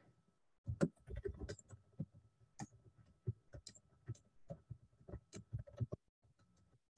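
Typing on a computer keyboard: a run of irregular key clicks, stopping about a second before the end.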